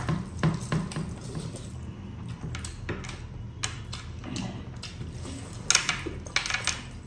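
Close-miked eating by hand: fingers mixing biryani rice on a plate, and wet chewing and lip-smacking over mouthfuls, with a cluster of loud smacks near the end.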